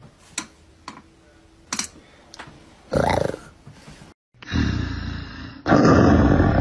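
A few faint clicks and a short burst about three seconds in, then, after a brief dropout, a loud, rough roar that comes in two surges, the second louder.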